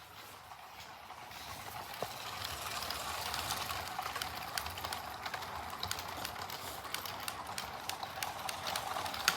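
Battery-powered LEGO City Express Passenger Train running on plastic track: a steady whirring motor with many irregular plastic clicks from the wheels on the track, growing louder from about a second in as it comes closer.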